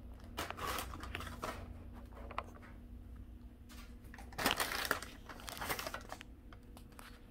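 Clear plastic bag crinkling as it is handled and reached into, in two bouts: one starting about half a second in and a louder one about four and a half seconds in.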